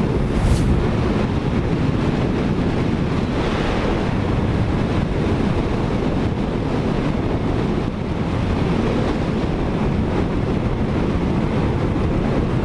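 Steady wind rush buffeting the microphone of a motorcycle riding at road speed, with the bike's engine and road noise underneath.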